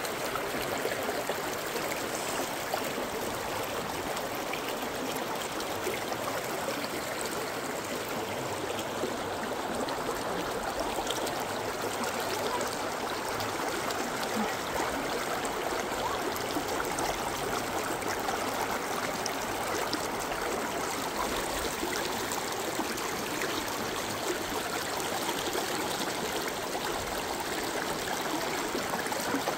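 Shallow rocky creek running over stones and boulders: a steady rush of flowing water that does not change.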